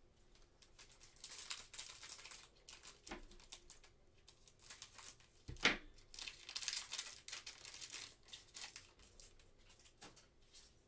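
Trading cards being shuffled and flipped in gloved hands: irregular crinkling and rustling, with one sharp tap about halfway through.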